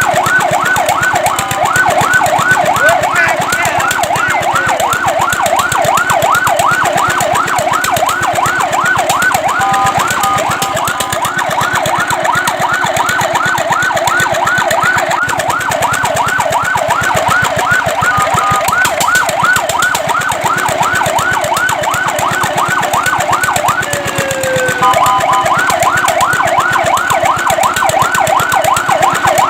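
Fire truck's electronic siren sounding in a fast yelp, a rapid rising wail repeated several times a second. About three times it breaks briefly into a short steady tone before the yelp resumes.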